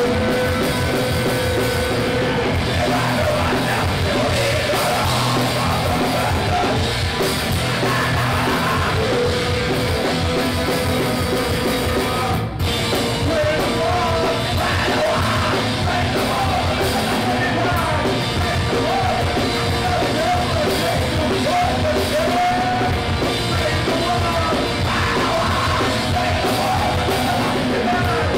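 Live rock band playing: electric guitars, bass and drums, with a singer yelling into the microphone. The audio drops out for a split second about halfway through.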